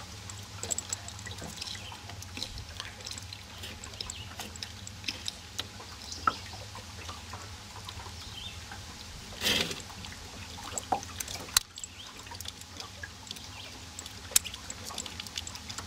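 Quiet handling noise from an ignition key switch being worked and probed with multimeter test leads: scattered small clicks and ticks, with one short louder rustle about halfway through, over a low steady background hum.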